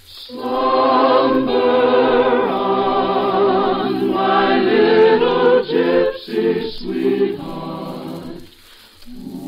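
A choir sings a held, swelling musical phrase from the operetta, heard through an early-1950s radio broadcast recording. It dies away about eight and a half seconds in.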